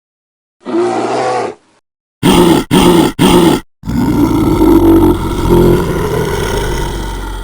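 Bear vocalising aggressively: a one-second growl about half a second in, three quick grunts around two to three and a half seconds, then a long loud roar that tails off near the end.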